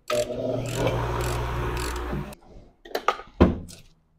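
Hand tools at work on the car's body: a rasping, rubbing noise lasting about two seconds, then a few sharp clicks.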